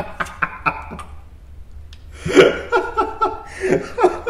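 A man laughing hard: light chuckles at first, then from about halfway a run of rhythmic bursts of laughter, with a few light clicks mixed in.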